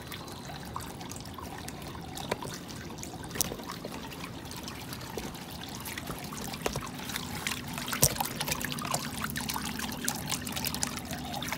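Water gurgling and splashing weakly at the surface, pushed up through the short outlet of a small Eheim Compact On 600 submersible aquarium pump, with scattered small splashes. The flow is only a dribble, a weak output for the pump.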